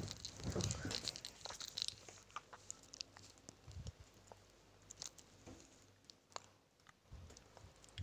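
Faint scattered clicks and soft rustling close to the microphone, over a low steady hum.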